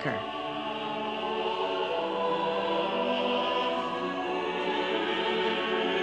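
Soundtrack music: a choir holding long, slowly changing chords.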